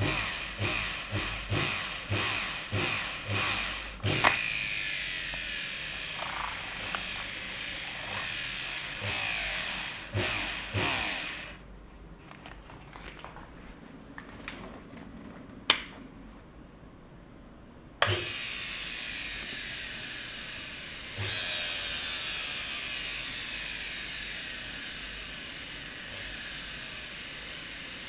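Old washing-machine motor under PID speed control being loaded to try to stall it. It surges in rapid pulses, about two a second at first, then runs steadily. Partway through it falls almost silent for about six seconds, with one sharp click, then abruptly runs up again and keeps running.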